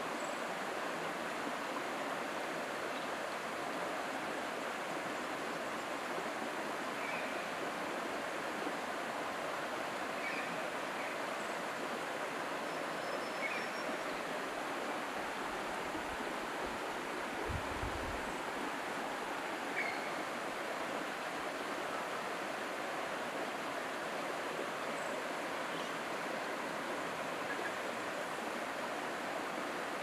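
Running water in a creek or stream, a steady unbroken rush of flowing water.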